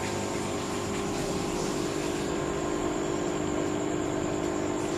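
Aquarium aeration running steadily: the air pump's hum with the hiss of bubbles streaming from air stones.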